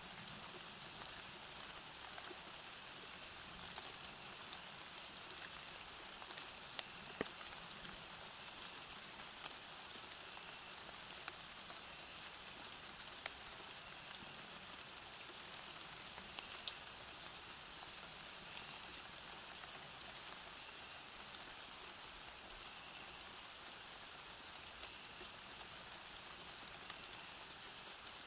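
Steady rain falling: an even hiss with a few louder, separate drop ticks scattered through it.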